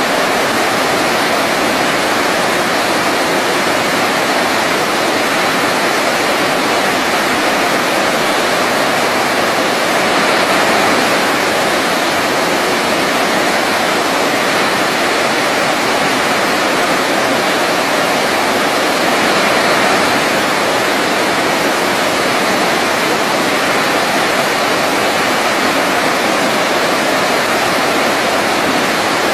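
Waterfall rushing in a steady, even roar of falling water, with no breaks or separate splashes.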